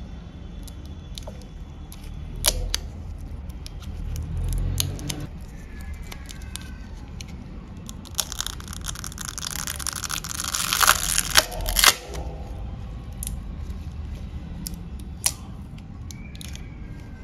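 Battery adhesive tearing and peeling as a smartphone's lithium-polymer battery is pried up out of its frame. Midway through there is a rasping peel lasting about four seconds that ends in three sharp cracks. Scattered clicks and taps from a plastic pry tool come before and after it.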